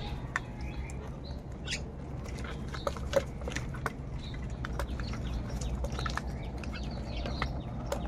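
House crows feeding at a plastic basin: a scatter of sharp clicks and taps from beaks pecking at the food and the basin, the loudest about three seconds in, with a few short, faint bird calls over a steady low rumble.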